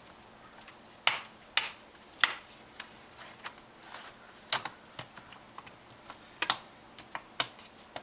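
Plastic laptop cover being pressed back into place by hand, its clips snapping home in an irregular run of sharp clicks.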